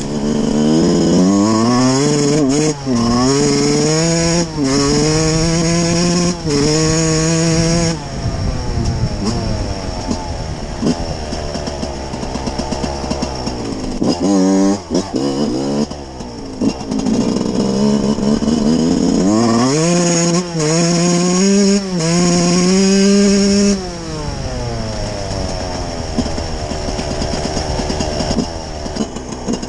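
Yamaha YZ125's single-cylinder two-stroke engine under hard riding, its pitch climbing and dropping repeatedly as the throttle is opened and eased off. There are brief throttle cuts between the pulls, and a lower, steadier stretch around the middle and near the end.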